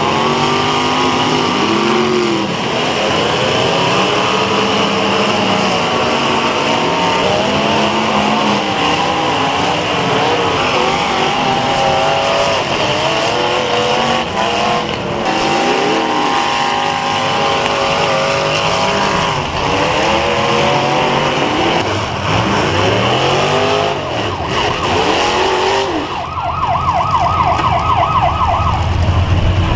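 Several demolition derby cars' engines revving up and falling back over one another, a dense overlapping din. Near the end a fast warbling, siren-like tone sounds for about three seconds over a low hum.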